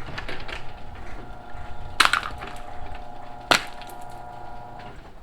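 Gingerbread house being broken apart by hand: crisp cracking and crunching of the baked gingerbread, with two sharp snaps about two and three and a half seconds in.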